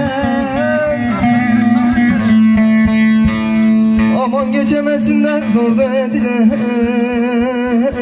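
Turkish uzun hava folk music played over PA speakers: an electronic keyboard plays a free-rhythm, ornamented melody with wavering bends over a steady low drone.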